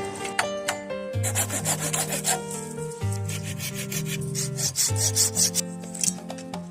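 Background music: sustained chords over a bass note that changes about every two seconds, with a rhythmic scratchy percussion on top.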